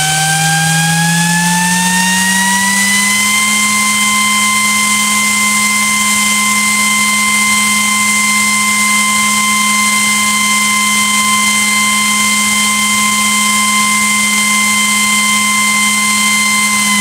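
Delta THD1348HE 48 V high-speed brushless fan spinning up under PWM control: a loud whine whose tones rise in pitch for about three and a half seconds. It then holds steady at full speed, about 12,400 rpm.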